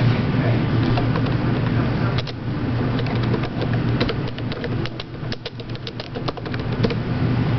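Steady low electrical hum, with a run of sharp light clicks and ticks from about two seconds in until near the end.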